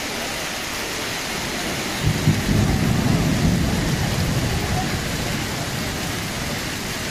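Steady noise of rain mixed with hail falling, with a low rumble of thunder that breaks in suddenly about two seconds in and fades over a few seconds.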